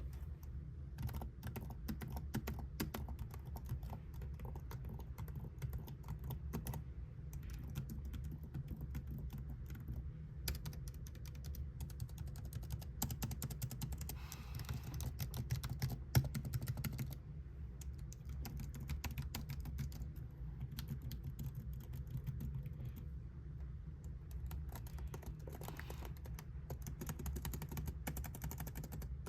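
Typing on a Lenovo IdeaPad 3i laptop's keyboard: rapid, continuous key clicks, with one louder key strike about sixteen seconds in, over a steady low hum.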